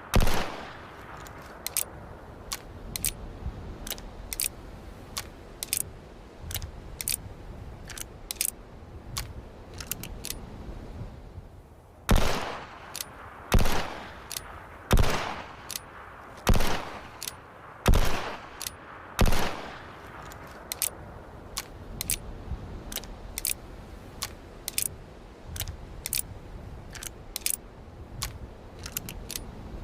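Single-action revolver firing: one shot at the start, then many light metallic clicks of the hammer being cocked and the cylinder turning, then five shots about a second and a half apart, each with an echoing tail, followed by more clicking.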